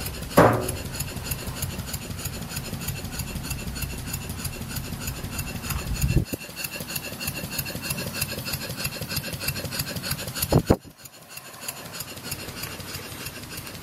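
Stuart No 4 single-cylinder model steam engine running fast on low-pressure compressed air during running-in, a rapid even rhythm of exhaust beats and clatter. A low rumble under it stops about halfway through, and after a brief louder sound about three-quarters of the way in the running is quieter.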